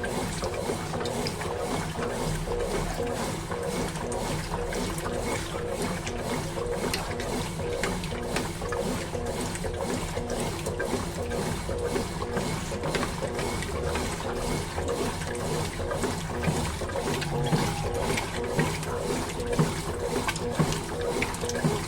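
Consul Facilite 11 kg top-loading washing machine agitating during its second rinse: water sloshing in the drum with a regular swish about twice a second over a steady mechanical hum.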